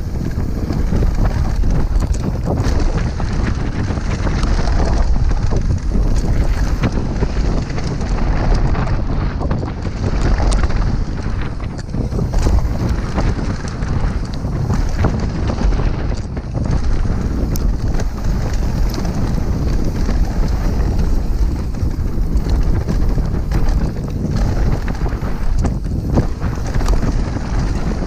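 Wind noise on a helmet-mounted GoPro microphone during a fast downhill mountain-bike descent, over the tyres on a dirt and gravel trail and the bike's steady rattle and small knocks over bumps.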